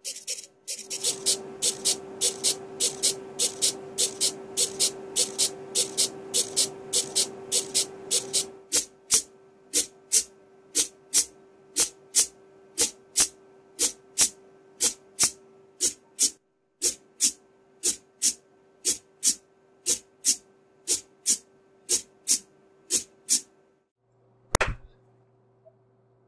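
Hobby servomotors swinging 3D-printed arms onto computer keyboard keys, making a sharp regular click about every 0.6 s over a steady thin whine. For the first several seconds a hiss runs under the clicks, and there is one louder knock near the end.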